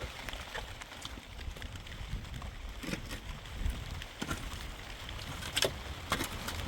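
Water dripping and splashing in irregular taps, with a low rumble underneath.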